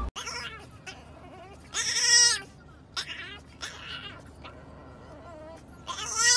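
French bulldog puppy howling in short calls of wavering pitch. The loudest comes about two seconds in, fainter ones follow, and another loud one starts at the very end.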